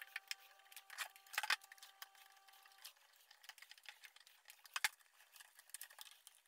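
Scattered light clicks and taps of circuit boards being handled and pushed into their slots in a metal instrument chassis, with a few sharper knocks about a second and a half in and again near five seconds.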